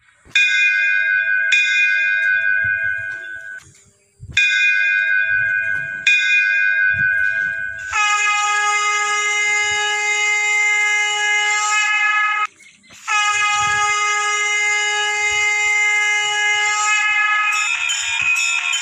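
Temple bell rung in two pairs of strikes, each ringing on for a second or two, then two long steady blasts of a shankh conch shell, about four seconds each with a short break between them. Near the end a rapid jingling of small bells begins.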